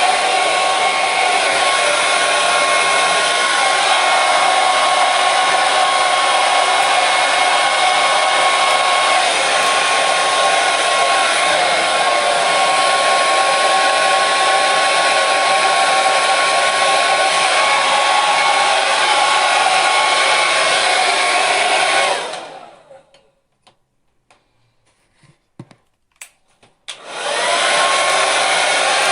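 Hair dryer blowing steadily, a loud even whoosh with a steady whine through it. About 22 seconds in it dies away over about a second, a few faint clicks sound in the quiet, and some five seconds later it starts again with a rising whine as the motor spins up.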